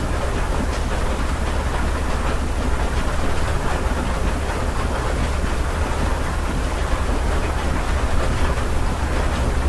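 Steady rain heard from inside a house, a dense even patter with many small drop ticks over a deep low rumble.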